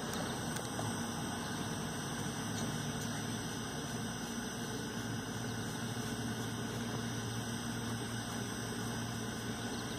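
A steady low mechanical hum over even background noise, with nothing striking or changing.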